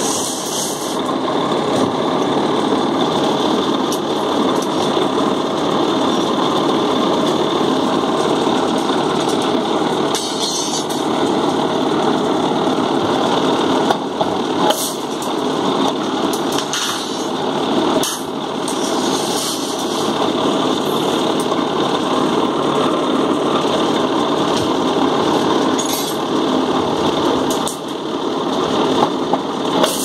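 Electric rebar cutting machine running steadily, its motor and gear drive making a continuous mechanical drone, with a few sharp metallic clanks of steel reinforcing bars at the cutter.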